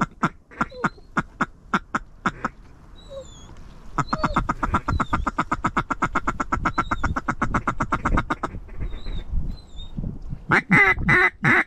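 Mallard duck call blown by a hunter working incoming ducks: a string of short quacks, then a long, even feed chuckle of about ten notes a second, then a few loud quacks near the end. Short high whistles come and go throughout.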